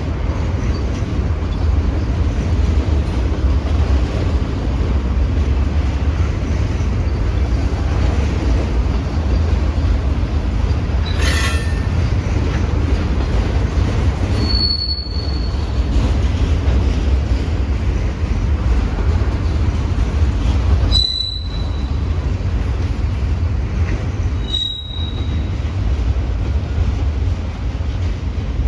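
Freight train cars rolling past with a steady rumble. There are three brief high-pitched squeals from the wheels, about halfway through and later on.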